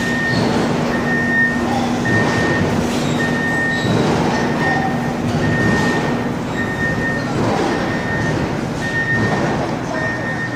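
Large Hyundai forklift moving with its engine running and its back-up alarm beeping, one short high beep about every second.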